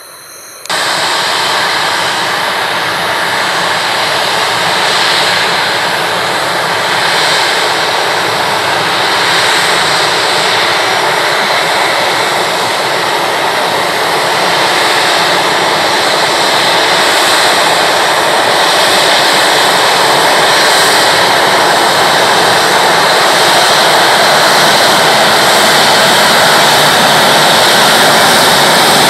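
Boeing 737-800's twin CFM56-7B jet engines running close by as the airliner moves along the ground. The loud, steady jet noise cuts in suddenly under a second in and slowly swells.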